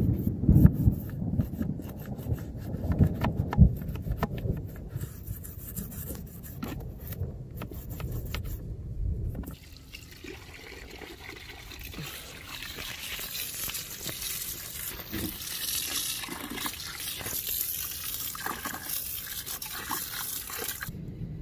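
Knocks and scraping of hands and a small tool on a plastic ATV airbox, then, about halfway through, a garden-hose spray nozzle starts jetting water onto the airbox to wash it out: a steady hissing splash that runs until it is cut off near the end.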